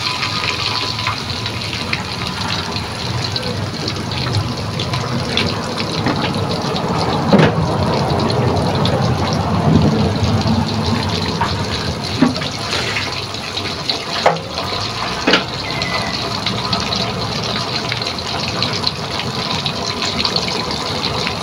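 Spice-marinated chicken pieces and their crumbly spice crust deep-frying in oil in a wok: a steady sizzle thick with fine crackles, with a few louder pops.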